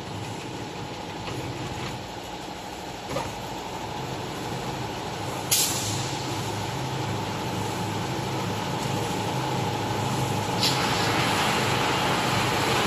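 Machinery of a CNC rebar sawing and processing line running: a steady motor and roller-conveyor hum, broken by a few short, sharp hissing bursts, the loudest about five and a half seconds in. From about ten and a half seconds in, a louder hiss carries on over the hum.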